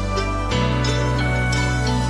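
Instrumental background music with sustained chords over a steady bass; the bass moves to a new chord about half a second in.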